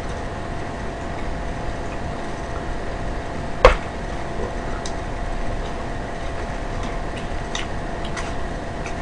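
Paper burger wrapper being handled against a steady low hum: a few crisp clicks and crinkles, one sharp loud snap about three and a half seconds in.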